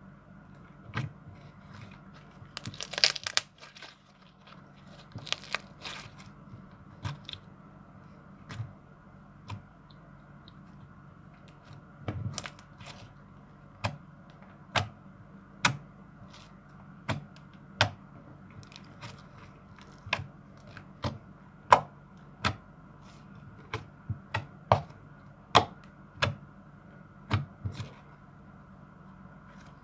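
Slime being squeezed and kneaded by hand, giving irregular sharp pops and crackles, with a dense crackly burst about three seconds in and another a couple of seconds later, then single pops about once a second.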